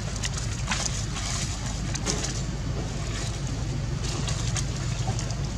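Steady low rumble, with a few short clicks and rustles scattered through it.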